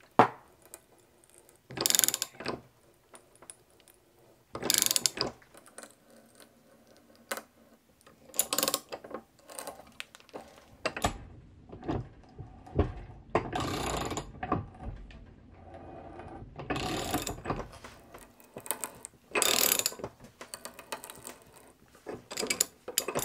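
A threading die cutting threads on aluminium rod clamped in a bench vise, turned by a wrench in short strokes: bursts of metal scraping and clicking every second or two, with a longer, heavier grinding stretch in the middle.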